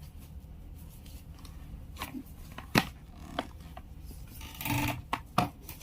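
Packaging being handled during an unboxing: a few sharp clicks and knocks, the loudest about three seconds in, and a short rustle of plastic or cardboard near the end.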